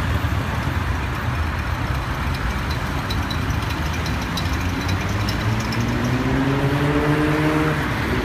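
Busy city street traffic: cars and vans passing close by with their engines running. Starting about five seconds in, one vehicle's engine rises in pitch as it speeds up.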